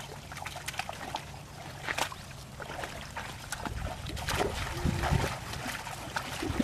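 Muddy ditch water sloshing and splashing as people wade and dig, with scattered splats and knocks from a hoe working the mud.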